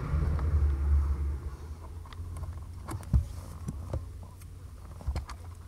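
Clicks and light rattles of car-stereo wiring and plastic harness connectors being handled, the sharpest click a little past three seconds in, over a steady low rumble that is stronger for the first second and a half.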